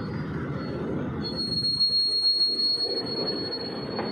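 Rail-laden flat wagons of a track-laying train rolling past on the track: a steady rumble of wheels on rail, with a high-pitched metallic wheel squeal that comes in about a second in and holds steady.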